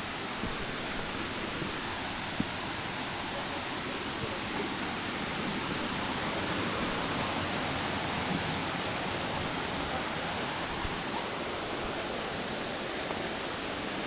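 A mountain stream rushing and splashing over rocks in a steady wash of water noise, with one brief knock about two and a half seconds in.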